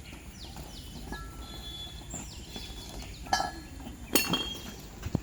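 Two sharp clinks, one about three seconds in and a louder one about a second later, over repeated short high chirps that fall in pitch.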